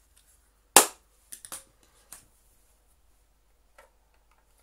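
A sharp hammer blow on a vacuum cleaner motor about a second in, followed by a few lighter knocks as it is struck to separate the motor's housing. Near the end come faint small clicks of metal on the motor's plastic cover.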